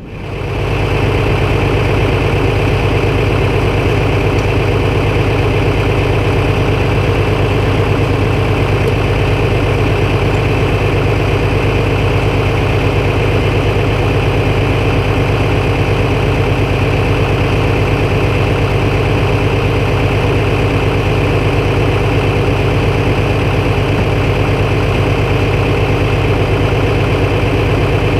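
Tractor engine idling steadily at a constant speed.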